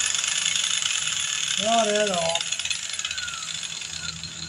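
Steady rattling, rasping noise of power-tool metalwork on the 1950 Chevy truck's sheet-metal body, fading away toward the end. A man's voice murmurs briefly about two seconds in.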